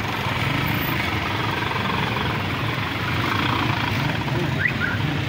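Street traffic: the engines of auto-rickshaws, vans and a motorcycle idling and running close by in a steady low rumble, with a short rising squeak near the end.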